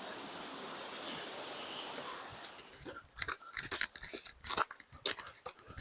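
Steady rush of a distant waterfall, then from about halfway a run of irregular crunches of footsteps on a dry, leafy trail.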